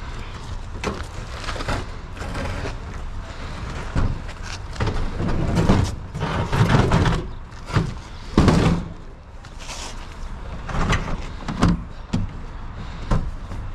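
A heavy metal appliance being shoved and dragged, scraping and knocking irregularly against a vehicle's cargo bed, loudest in the middle.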